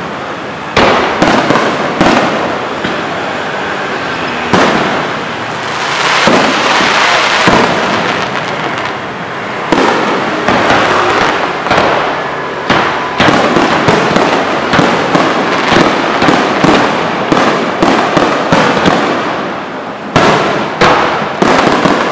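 Electronically fired aerial fireworks from truck-mounted launchers going off in a dense barrage: sharp bangs one after another over a continuous rushing crackle, the bangs coming about twice a second in the second half.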